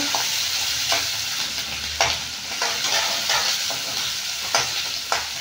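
Chopped onion, garlic and green chilli sizzling in hot oil in a kadhai, stirred with a spatula that scrapes and knocks against the pan every second or so.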